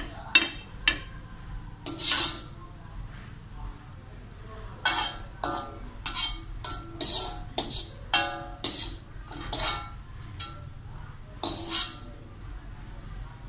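Metal slotted spatula clinking and scraping against a wok and a plate as a stir-fry is served out: a string of sharp clinks with brief metallic ringing, a few at first, then a quick run of about a dozen, then two more near the end.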